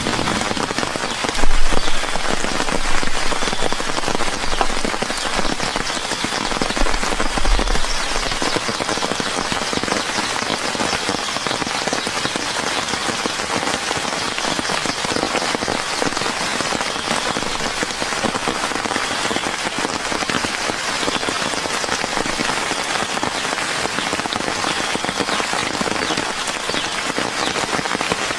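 Steady heavy rain falling. A low rumble runs under it for the first several seconds, loudest about a second and a half in.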